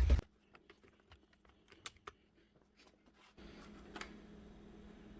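A few faint, light clicks, like small metal tools or parts being handled, then a steady low hum that comes in about three seconds in.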